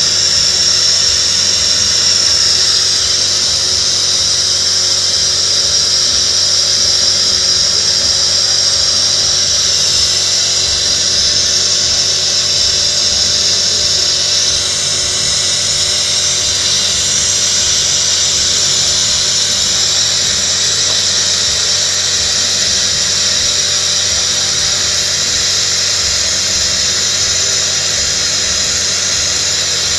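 Honda car engine running steadily during an engine flush, with a loud, high-pitched whine and hiss over it; the level drops slightly about halfway through.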